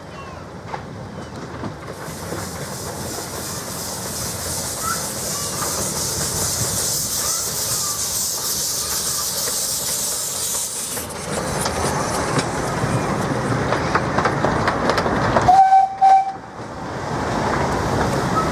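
Miniature-gauge steam locomotive passing with its train: a steady hiss of steam for several seconds, then the carriages rattling and clicking over the rail joints. A short whistle blast sounds about fifteen seconds in.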